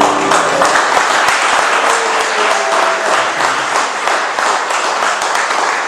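Audience applauding, beginning as the last keyboard chord dies away in the first half second.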